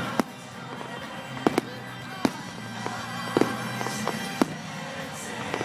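Fireworks going off: several sharp bangs and cracks at irregular intervals.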